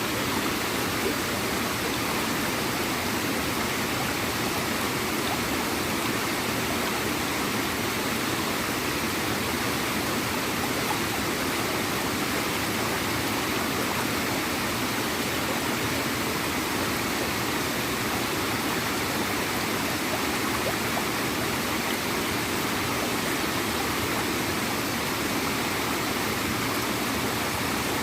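Small waterfall and stream: water splashing and gurgling steadily over rocks.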